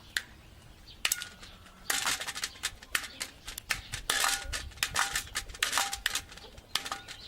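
Irregular clicking and tapping: a few isolated clicks, then from about two seconds in a rapid, uneven run of sharp taps, some with a short ringing tone.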